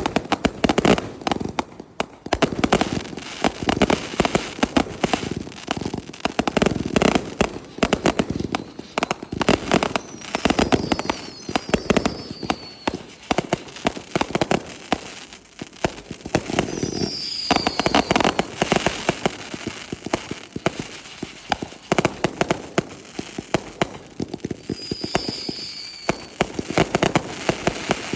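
Aerial fireworks going off in quick succession: a dense, unbroken run of booms and crackling bursts, with a few brief high whistles over it.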